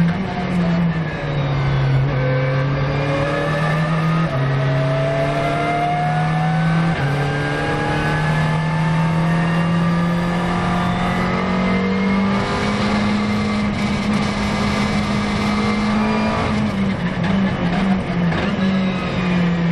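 McLaren 650S GT3 race car's twin-turbo V8 heard from inside the cockpit, running hard on track. The engine note climbs steadily as the car accelerates, then steps down through several gear changes near the end as it slows for a corner.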